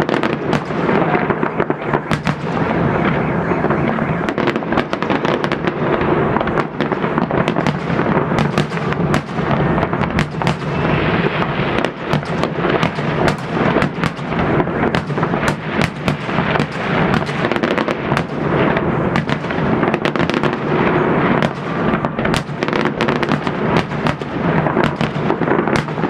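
Fireworks salute: a dense, unbroken barrage of bangs and crackling bursts.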